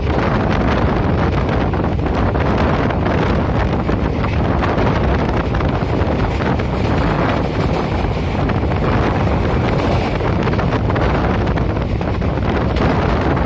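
Moving train running with a steady loud rumble, mixed with heavy wind buffeting on the microphone.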